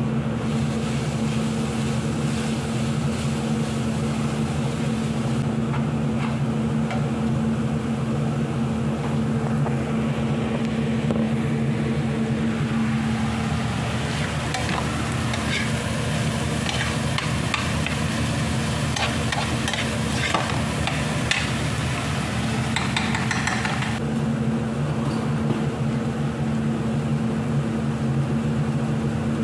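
Crumbled ground meat sizzling in a frying pan while a slotted metal spatula stirs and scrapes it, the scraping busiest in the middle stretch. A steady low machine hum runs underneath.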